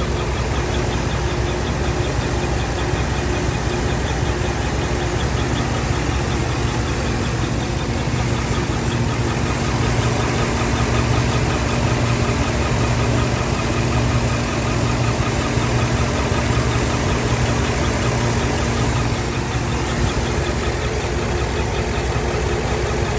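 GM 5.3-litre V8 running steadily with a rapid, evenly repeating chirp from the valvetrain: the sign of failed AFM lifters and a damaged camshaft.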